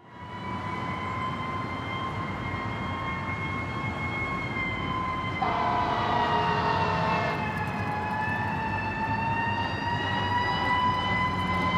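An emergency-vehicle siren wails, its pitch slowly sagging and rising again, over a steady rush of town traffic noise. A second siren tone cuts in for a couple of seconds about halfway.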